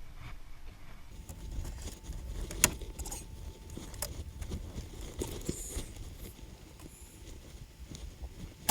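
A Renault Twizy's side window being unfastened and handled: a few sharp clicks and knocks over a low rumble, the loudest about two and a half seconds in.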